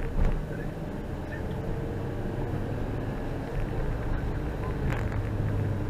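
Steady low rumble of a vehicle running, with a short knock at the start and another about five seconds in.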